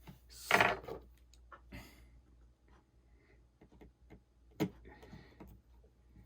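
Faint, scattered small clicks and taps of a precision screwdriver and tiny screws being worked on a phone during reassembly, with a short swish about half a second in and a sharper click about two-thirds of the way through.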